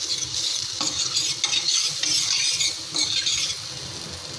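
Butter-and-flour roux sizzling in hot olive oil in a stainless steel pan while a steel spoon stirs and scrapes through it. The sizzle swells and fades in surges, with a few light clicks of the spoon against the pan.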